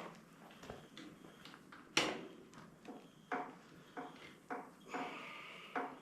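Irregular sharp knocks and clanks of tools and parts being handled, the loudest about two seconds in, with a short scraping sound around five seconds in.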